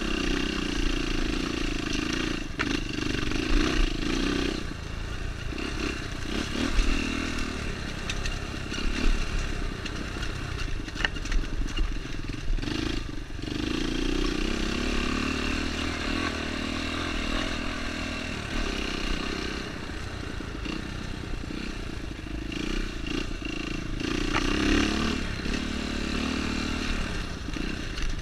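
Dirt bike engine rising and falling with the throttle every few seconds as the bike rides a rough trail, with scattered knocks and clatter from the bike over the rocks.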